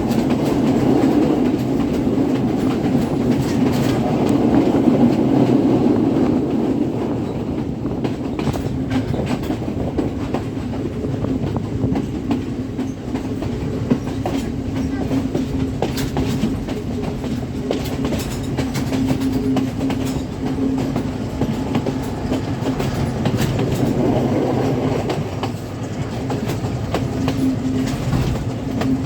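A passenger train running along the line: a steady rumble with a held low hum, and the wheels clacking over rail joints at irregular intervals.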